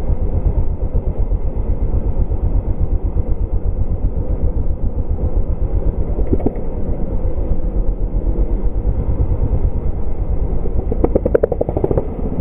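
Dirt bike engine running while riding, heard close-up from a camera on the bike or rider. Near the end the engine note briefly rises and falls in a short rev.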